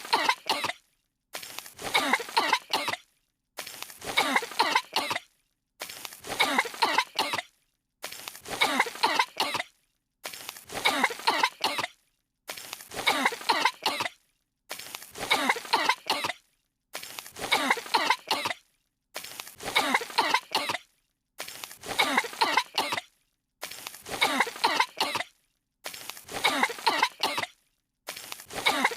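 Two animated characters' voices coughing hard, choking on dust: the same short burst of coughs repeats about every two seconds with silent gaps between, a clip looped over and over.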